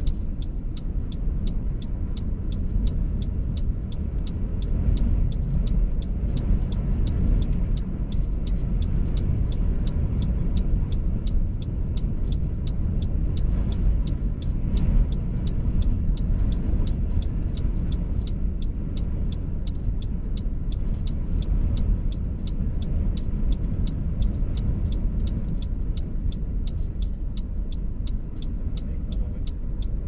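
Strong gusting wind buffeting a parked car, heard from inside as a steady low rumble. A faint, even ticking, about two to three a second, runs through it.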